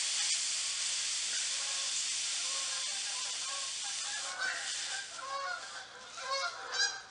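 Steam hissing from a clothes iron pressed onto a damp rag on wood veneer, steaming dents back up; the hiss fades over the first few seconds. From about four seconds in, a run of short honking calls sounds over it.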